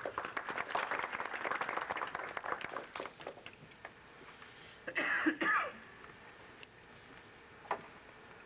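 Light applause from a small audience for about three and a half seconds, dying away, then a brief vocal sound about five seconds in and a single knock near the end.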